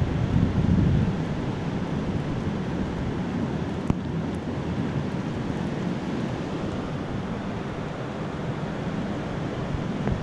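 Gusty hurricane wind buffeting the microphone over a steady rushing noise, with heavier low gusts near the start and a single click about four seconds in.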